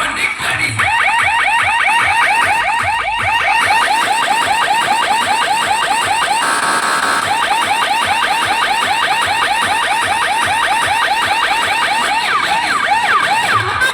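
Electronic siren-horn run through its tone patterns: a fast string of rising chirps, several a second, broken about halfway by a short steady tone, then slower separate whoops near the end.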